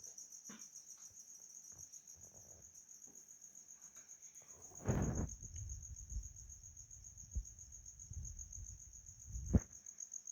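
A cricket chirping steadily in a rapid, even pulse, high-pitched throughout. A dull knock with some low rumble comes about five seconds in, and a sharp knock comes near the end.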